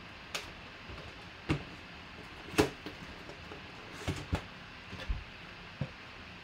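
A cardboard trading-card box, a 2016 Panini Black Gold football hobby box, being handled and its lid lifted off: scattered knocks and taps of the box and lid against the table, the loudest about two and a half seconds in.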